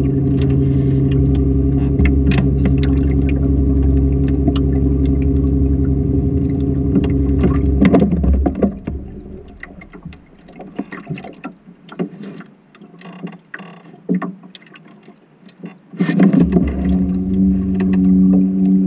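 Jet outboard motor on a jon boat running steadily, then dropping away for several seconds, leaving scattered water splashes and knocks, before it picks up again with a higher pitch.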